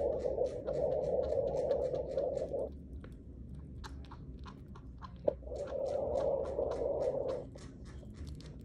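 Chinchilla chewing a piece of banana: rapid small clicks and crunches, about seven a second, with one sharper click about five seconds in. A low rushing noise comes and goes twice underneath.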